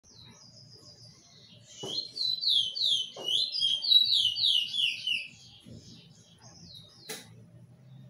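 A finch sings one song phrase, starting a couple of seconds in and lasting about three and a half seconds: a run of quick notes, each sliding downward, with the run falling in pitch overall. A sharp click comes near the end.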